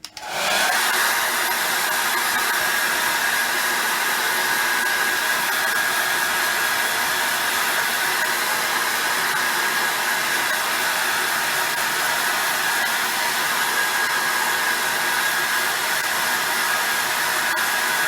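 Hot-air blower switched on and running steadily, a rushing airflow with a faint steady whine, heating the iPhone 6s screen's edge to soften its adhesive.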